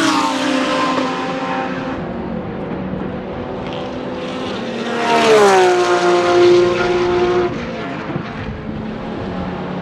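Porsche 991.2 GT3 R race car's naturally aspirated 4.0-litre flat-six at speed, passing twice: its pitch falls as it goes by just after the start, and again about five seconds in. After the second drop the note holds steady and then cuts off suddenly about seven and a half seconds in.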